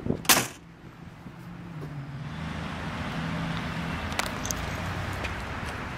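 A 1957 Ford Thunderbird's door shut with a single slam just after the start. From about a second in, the noise of passing road traffic swells and holds, with a low engine hum.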